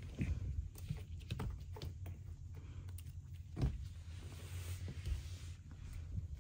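Faint scattered knocks and scuffles over a low steady hum, with one louder thump about three and a half seconds in.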